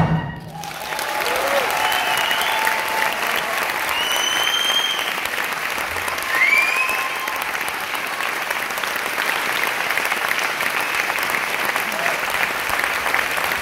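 Audience applauding steadily, rising up just as the dance music stops, with a few high cheers from the crowd in the first several seconds.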